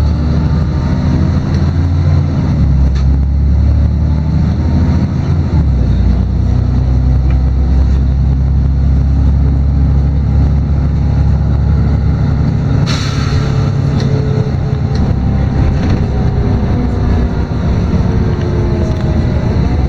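LiAZ-6213.22 articulated city bus under way, heard from inside the passenger cabin: a steady drone of the engine and drivetrain, its pitch shifting a few times as the bus changes speed. A short hiss of compressed air comes about two thirds of the way through.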